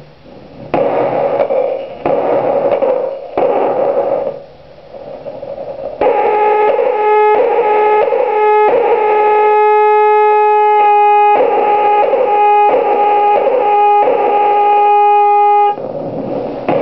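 Circuit-bent toy keyboard synth: stuttering bursts of harsh, pitchless noise for the first six seconds. It then switches to a buzzy square-wave drone held on one pitch and chopped on and off in a rough rhythm. Near the end the noise returns.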